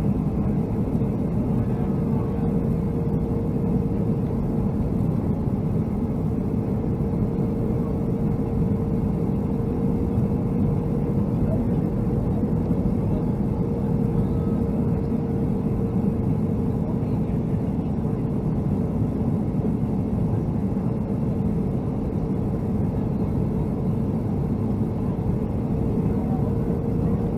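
Steady cabin noise inside a Boeing 757-200: engine drone and rushing airflow, with a constant hum over it.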